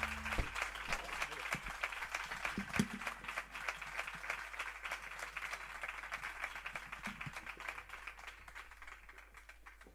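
Audience applauding: many hands clapping, with a few louder claps in the first few seconds, the applause fading out gradually toward the end.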